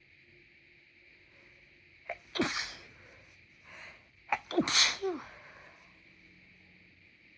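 A person's congested sneezes, two of them about two seconds apart, each a sharp catch of breath followed by the burst of the sneeze.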